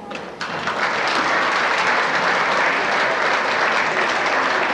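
Audience applauding, starting about half a second in and then running on as steady clapping.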